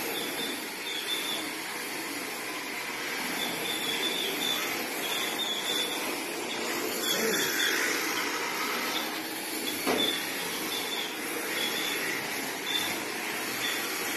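Electric MST RMX 2.0 RC drift cars running on smooth concrete: a steady hiss of tyres sliding with an on-and-off high whine from the motors, and a single sharp knock about ten seconds in.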